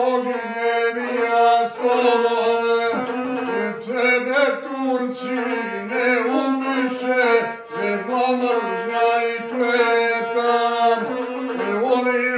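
Montenegrin folk epic singing: a man chants in a narrow range of pitches, accompanied throughout by a single-string gusle played with a bow.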